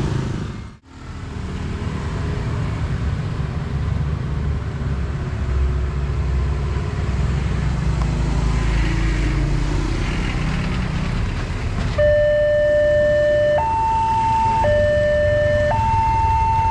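Motorcycles passing over a railway level crossing. About twelve seconds in, the crossing's electronic warning alarm starts: two pure tones, low then high, alternating about once a second, warning that a train is coming and the barriers are about to close.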